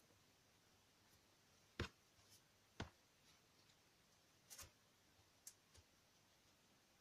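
A few faint, short taps and clicks as paper and card are handled and set down on a cutting mat, spread out over several seconds, with near silence between them.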